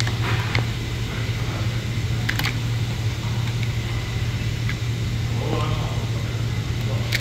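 A steady low hum, with a few sharp clicks from a plastic lid being prised off a small side cup. Faint voices come in briefly near the end.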